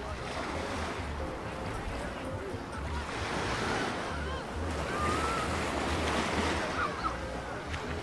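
Small waves breaking and washing up the sand at the shoreline, swelling about three seconds in, with distant voices of beachgoers mixed in.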